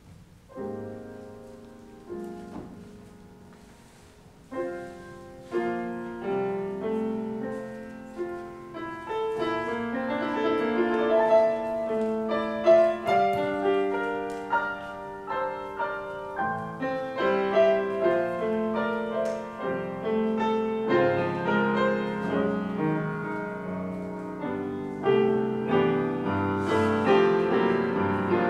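Solo grand piano playing a slow piece. It opens with a few separate chords and fills out into fuller, louder playing after about nine seconds.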